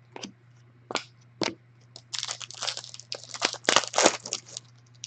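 Trading card pack wrapper being torn open and crinkled, with a few light clicks of handling at first, then a couple of seconds of dense crackling.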